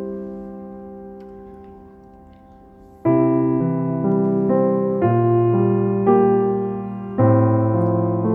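Gentle background piano music. A held chord fades away over the first three seconds, then a soft melody over bass notes picks up again.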